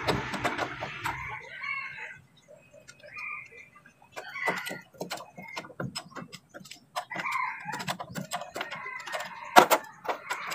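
Hand tools clicking and clinking on the steel of a truck's axle and leaf-spring mounts, in irregular sharp clicks, with one louder clank near the end.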